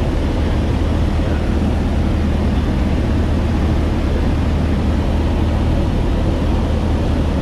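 Maule light aircraft's piston engine and propeller running steadily, heard inside the cabin as an even low drone with rushing air over it.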